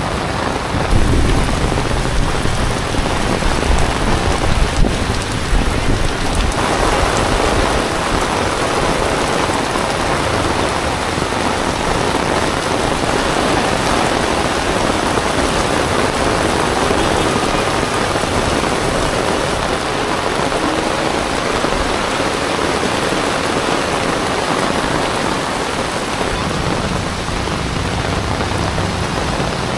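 Heavy rain pouring steadily onto pavement and streets. A deep rumble with a few louder peaks sits under it for the first six seconds.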